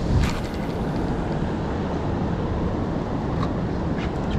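Steady low rumble of a boat under way on the open sea, with a single thump just after the start.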